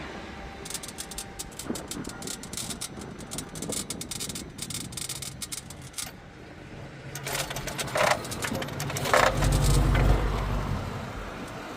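A BMW M4's engine being cranked by the starter without firing, a sign of a no-start fault that the owner links to the VVT not responding. A fast, irregular clicking runs through the first half, and a louder low rumble of cranking comes in the second half.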